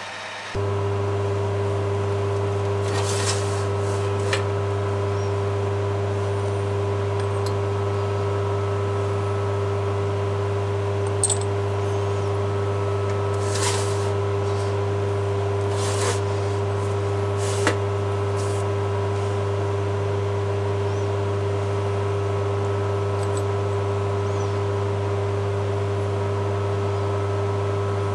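Steady hum of a workshop machine's electric motor running, with a few short metallic clicks and clinks as cutting tools are handled in a metal drawer.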